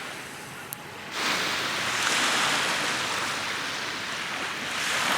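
Small lake waves washing onto the beach: a hiss of surf that swells about a second in and eases off again near the end.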